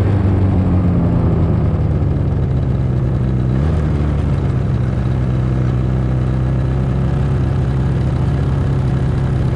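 Snowmobile engine heard from the rider's seat, easing off as the sled slows, with a shift in its note about a third of the way in, then running steadily at low speed as the sled comes to a stop.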